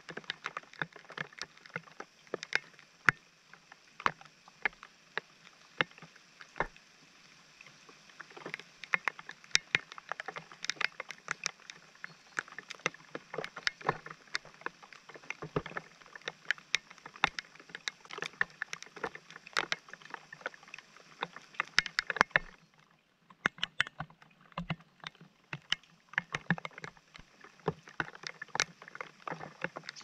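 Rain falling on wet paving, with many irregular sharp taps of drops striking close by.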